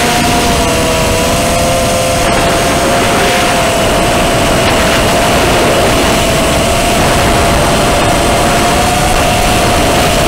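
FPV drone's electric motors and propellers whining steadily in flight, the pitch wavering slightly with throttle, over heavy wind rumble on the onboard microphone.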